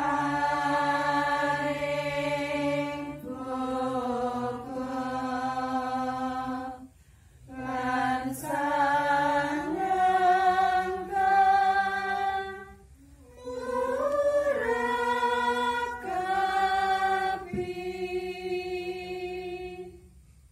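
Javanese Hindu devotional chanting: voices singing a slow melody in long, held notes. The phrases are broken by short pauses about every three to six seconds.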